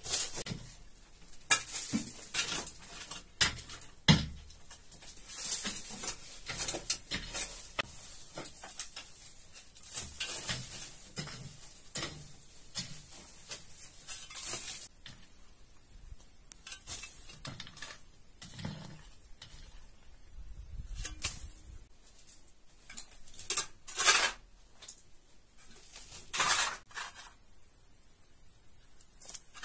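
Flat stones knocking and clinking against each other as they are laid into a dry-stone wall, followed by sparser scrapes and knocks of a small shovel working loose earth and dry leaves.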